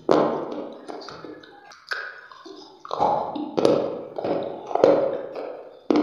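Close-miked crunching as hard, dry grey chunks are bitten and chewed: about six sharp crunches, each trailing off into crackling.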